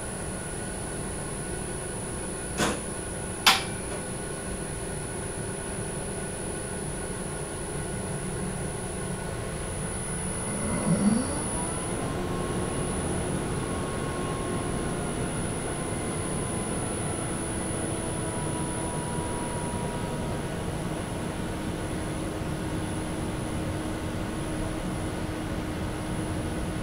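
Parked Tesla Model 3's climate system running with a steady hum and hiss, broken by two sharp clicks a second apart early on. About 11 seconds in, a new rising whine spins up and settles into a louder steady hum: the battery heating system engaging to warm the cold pack.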